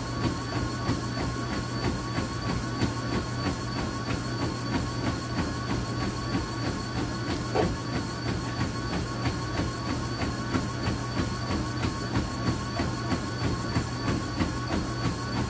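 Treadmill running at speed: a steady motor hum and whine, with a runner's footfalls striking the belt in an even rhythm of about three a second.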